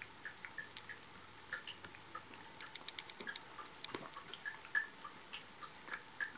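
A wet cat licking its paw: faint, irregular wet clicks and small smacks of the tongue, several a second.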